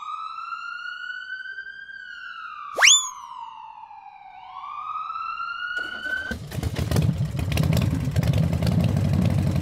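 Police siren wailing in slow rising and falling sweeps, with one quick upward whoop about three seconds in. About six seconds in the siren stops, and a louder rough rustling and rumbling noise takes over.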